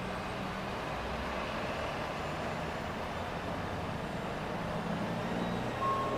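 A city bus's engine running as the bus approaches slowly along a narrow street with traffic noise, growing a little louder as it nears. A short high beep sounds near the end.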